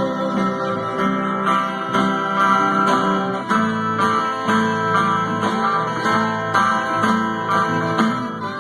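Guitar strumming steady chords in an instrumental passage of a worship song, without singing.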